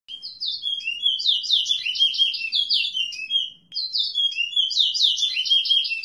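Songbird singing: two rapid phrases of repeated falling notes, with a short break between them about three and a half seconds in.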